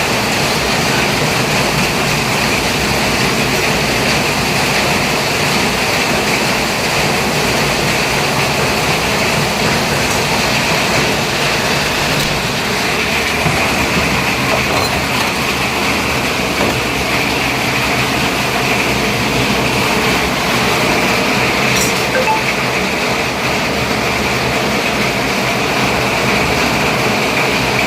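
Steady noise of a vehicle on the move: a low rumble with a constant hiss, unchanging throughout.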